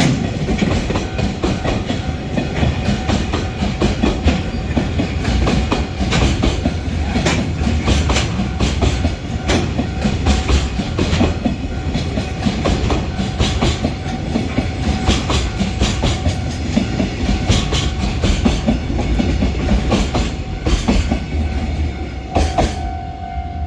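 Container freight train hauled by an EH500 electric locomotive rolling past, with a steady low rumble and the rapid clatter of wheels over rail joints. Near the end the clatter eases and a steady tone grows louder.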